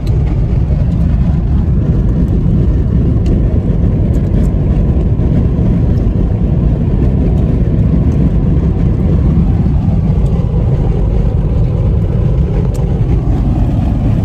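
Steady low rumble of a moving car, heard from inside the cabin as tyre and engine noise while driving.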